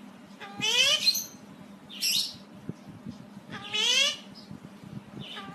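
Parrot calling: the same short call rising in pitch, heard twice about three seconds apart, with a brief harsh squawk between them.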